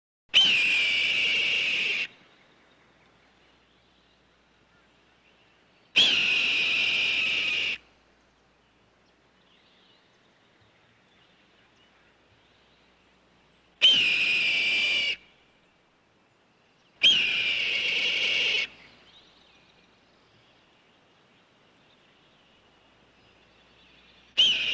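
A hawk screaming five times, each scream a harsh, piercing call of about a second and a half that starts with a quick downward slur and then holds. The gaps between screams are uneven, and the last scream starts just before the end.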